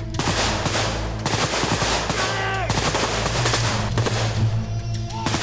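Rapid automatic rifle fire, shot after shot with no gaps, over steady low background music.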